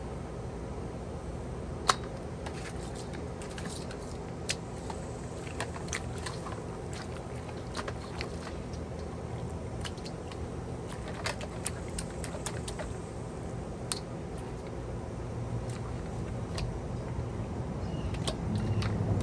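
Hands mixing chili-marinated stingray pieces in a stainless steel bowl, with scattered small clicks and wet handling sounds, over a steady low hum that grows louder near the end.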